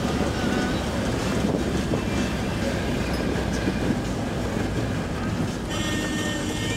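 A moving vehicle: a steady rumble with rattling road noise, and a brief high steady tone about six seconds in.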